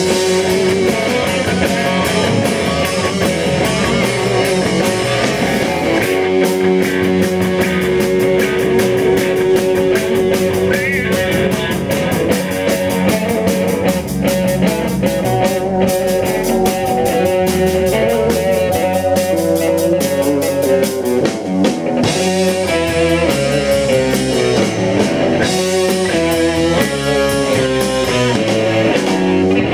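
Live rock band playing: electric guitars, bass guitar and a Yamaha drum kit.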